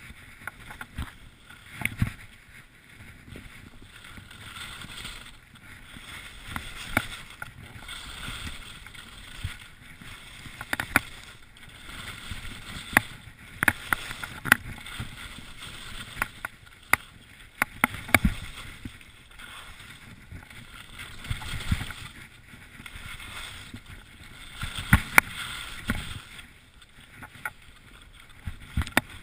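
Skis scraping and hissing over packed snow through a run of mogul turns, with irregular sharp knocks and clicks as the skis hit the bumps.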